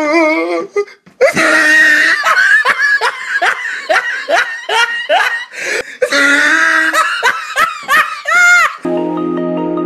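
A person laughing hard in long, loud fits of rapid bursts, ending in a brief high-pitched squeal. About nine seconds in, gentle marimba-like music begins.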